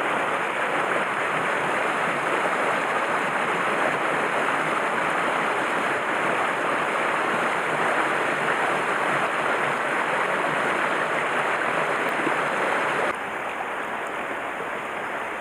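Mountain stream water flowing with a steady rushing hiss, which drops slightly in level abruptly near the end.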